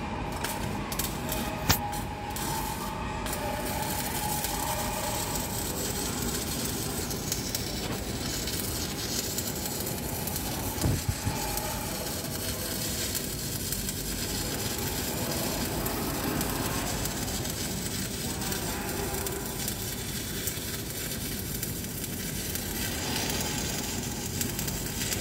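Stick (SMAW) welding arc from an LB-52 7016 low-hydrogen electrode at about 70–80 A, a steady crackling sizzle as the bead is run.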